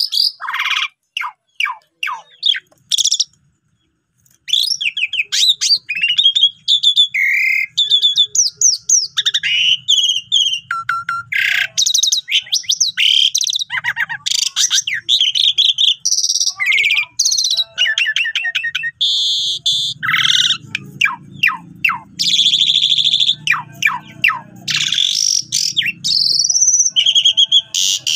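Asian pied starling singing at length: a fast, varied run of whistles, chirps and harsh rattling notes, with a short pause about four seconds in.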